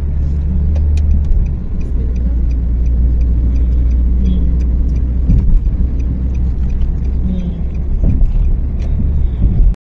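Road noise inside a moving car's cabin: a steady low rumble of engine and tyres at cruising speed, with faint scattered clicks. It cuts out abruptly near the end.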